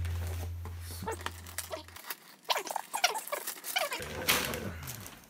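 Wrapping paper rustling and tearing as a gift-wrapped box is unwrapped, in many short irregular crackles. A low hum fades out over the first two seconds.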